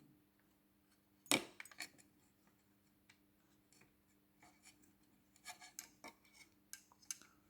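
Light clicks and taps of metal hinge pins being handled and pushed into an RC buggy's hinge pin braces, with one sharper click about a second and a half in and a scatter of faint clicks near the end.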